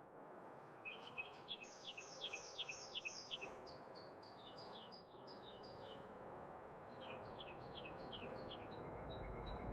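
Birds chirping faintly: several runs of quick, falling chirps, about five or six a second, over a soft background hiss.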